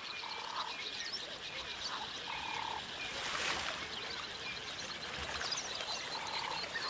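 A frog calling at the riverside: three short croaks spaced a few seconds apart, over a steady background of many small high chirps. There is a brief rush of noise about halfway through.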